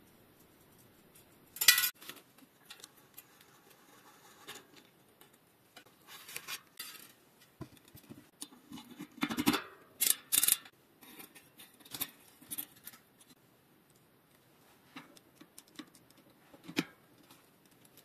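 Intermittent metallic clicks, clinks and scrapes of hand tools on a bicycle's rear wheel: a cassette lockring tool being seated on the cassette and an adjustable wrench being fitted onto it. The loudest clatters come about two seconds in and around ten seconds in.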